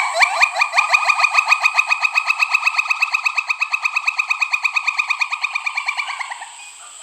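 Pileated gibbon calling a long, rapid trill of short repeated notes, about ten a second. The trill fades and stops about six and a half seconds in.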